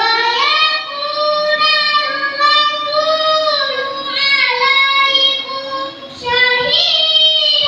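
A boy reciting the Qur'an in the melodic tilawah style. The notes are long, held and ornamented, bending up and down in pitch. The voice comes in suddenly, breaks off briefly for a breath about six seconds in, then starts the next phrase.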